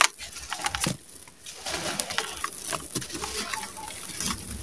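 Dry sand-cement crunching and crumbling between gloved hands, with many small gritty crackles as the grit falls into a plastic tub. A bird coos in the background partway through.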